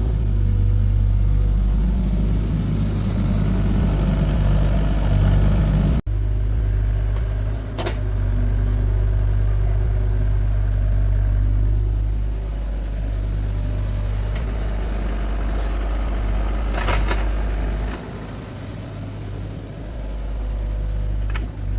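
An engine running steadily with a deep, even hum, likely heavy machinery. A few short knocks sound over it, one about eight seconds in and a couple around seventeen seconds.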